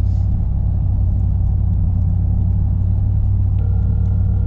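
Vehicle driving: a steady, loud, low engine and road rumble. About three and a half seconds in, a faint steady tone joins it.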